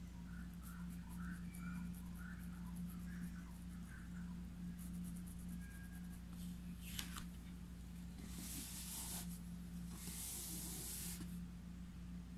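Flat paintbrush rubbing across stretched cotton fabric in a wooden embroidery hoop, a few scratchy strokes, the two longest about eight and ten seconds in, with a click just before them. A steady low hum runs underneath.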